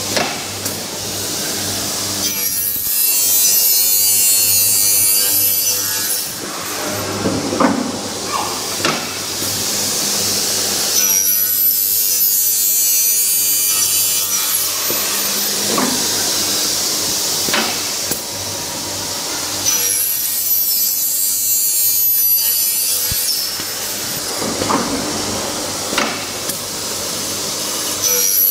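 Double-head aluminium cutting saw's circular blades cutting 2.2 mm aluminium profile, three cuts about nine seconds apart. Each cut is a high-pitched screech of about three seconds. Between cuts the saw motor keeps running and there are a few sharp clacks.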